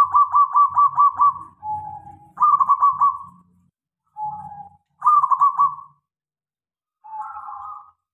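Zebra dove (perkutut) singing: three phrases of fast staccato cooing notes, about eight a second, each followed by a short lower coo, and a longer low coo near the end.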